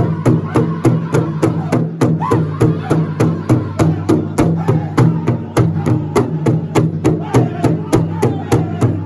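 Powwow drum group singing in unison while striking one large hide drum together with drumsticks in a steady, fast beat. The voices are high-pitched and slide up and down over the drum.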